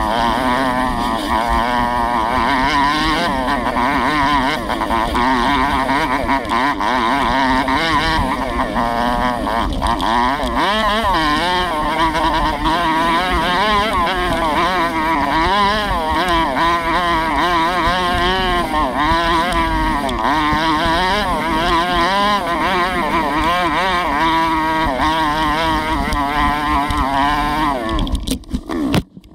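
Small 125cc four-stroke dirt bike engine revving up and down under constantly changing throttle while riding. The sound cuts out abruptly for a moment near the end.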